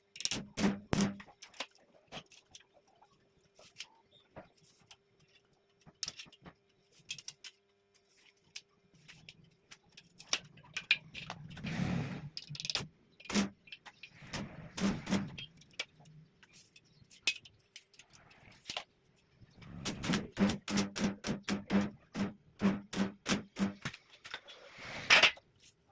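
Metal clanking and tapping on steel, in scattered strikes with a quick run of about three strikes a second near the end.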